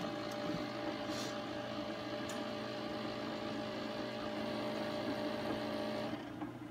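Small electric motor running steadily with a hum, mixing the drink, then switched off about six seconds in.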